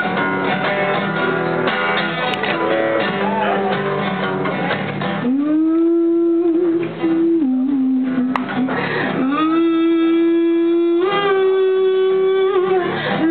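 Acoustic guitar strummed in chords for about five seconds, then a singer holds long, steady wordless notes over it, with a brief dip in pitch partway through.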